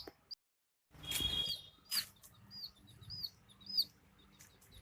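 Domestic chicks peeping: a run of short, high chirps, each rising then falling in pitch, coming about twice a second. About a second in there is a brief rustling burst.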